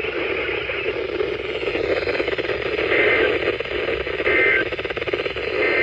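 NOAA Weather Radio reception full of static and hiss, with three short two-tone data bursts about a second and a half apart, typical of the digital SAME header that opens a weather radio alert or test.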